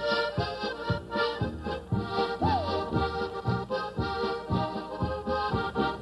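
Several diatonic button accordions playing a polka together, the melody in steady chords over an evenly spaced beat in the bass.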